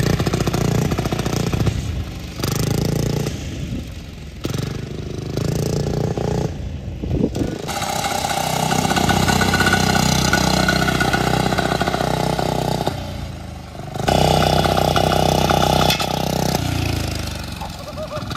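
Small engine of a homemade mini truck running as it drives, revving up and easing off several times and loudest around the middle.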